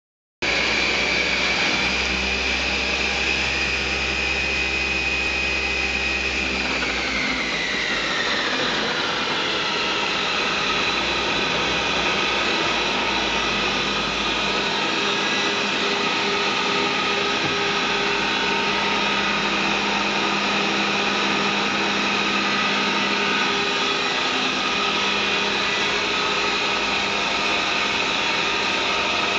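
CME FCM 5000 travelling-column milling machine running under power: a steady high machine whine over a low hum. About seven seconds in, the whine glides down in pitch and settles into a lower steady whine.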